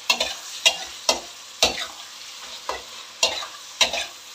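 Flat spatula scraping and stirring mutton liver with onion and tomato in a steel wok-shaped pan, about two strokes a second, over a steady sizzle of frying.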